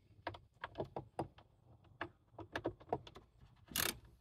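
Scattered light clicks and taps of a hand ratchet working a bolt loose in a car's engine bay, with a short, louder burst of ratchet clicking near the end.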